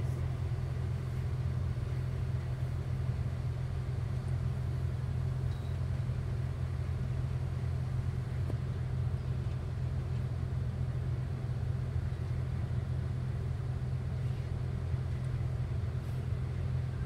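Steady low engine rumble, unchanging and with no revving, heard from inside a car.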